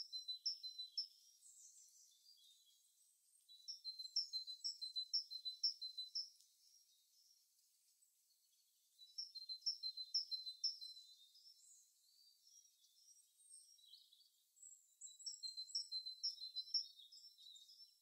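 A small songbird singing short phrases of quick, high, repeated two-note calls, about four notes a second. Four phrases come a few seconds apart, the first already under way at the start.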